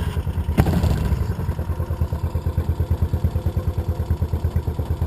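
Mokai ES-Kape's small single-cylinder four-stroke engine, just cold-started, running with a little throttle and a brief blip about half a second in. It then settles into a steady idle with even, distinct firing pulses.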